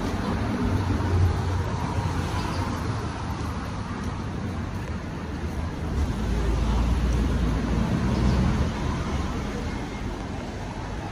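City street ambience: a steady low rumble of road traffic that swells about a second in and again for a couple of seconds past the middle.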